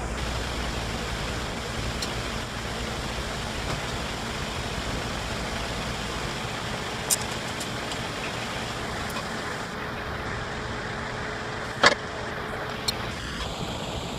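Steady machine noise with a low hum that drops away about halfway through, and a few sharp clicks, the loudest near the end.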